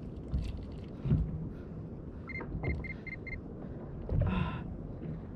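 Five quick high electronic beeps, evenly spaced over about a second, from the kayak's Garmin fish finder, starting about two seconds in. Under them are low knocks and water sloshing against the plastic kayak hull, the loudest a thump about a second in.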